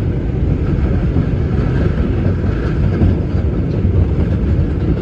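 New York City Subway 4 train running on elevated track, heard from inside the car: a steady, loud rumble of the wheels on the rails and the moving car.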